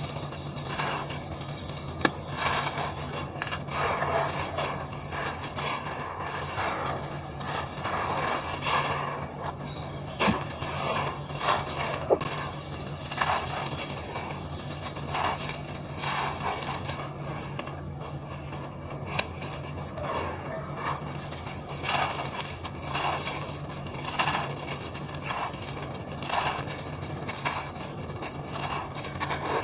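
Dry sand-cement chunks being crushed and crumbled by hand, gritty crunching with grains pouring and rubbing onto loose powder. The crunching comes in repeated swells every second or two, with a few sharp cracks as pieces snap.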